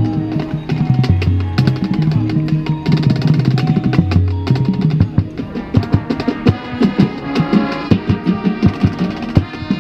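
Marching band playing: low brass and woodwinds holding long notes over drum-line strikes, with the drumming growing busier from about halfway through.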